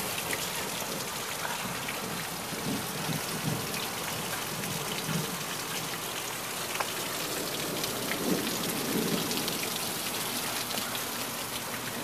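Heavy rain pouring steadily, with many close drops pattering and dripping off a porch roof eave.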